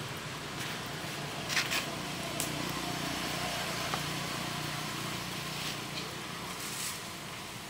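Steady low engine hum under outdoor ambience, with a few short clicks scattered through.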